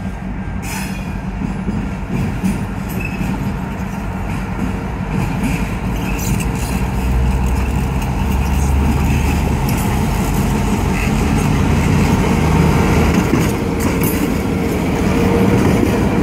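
EMD GP38 diesel locomotive running light, its 16-cylinder 645 two-stroke engine droning steadily and growing louder as it comes up and passes close by. A few sharp clicks from the wheels on the track.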